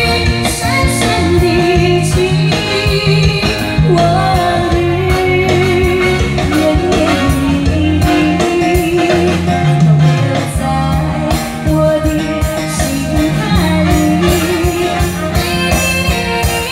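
A woman singing a slow, lyrical Chinese-language pop ballad into a handheld microphone over backing music with guitar and drums, amplified through a stage PA. Her held notes waver with vibrato.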